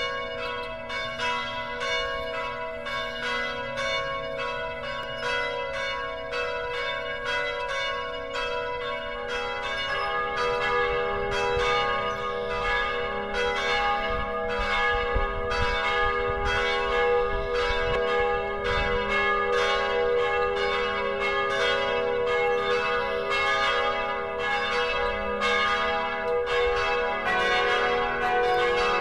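Church bells ringing a steady peal, about two strikes a second, each stroke ringing on into the next; the ringing grows a little louder around ten seconds in.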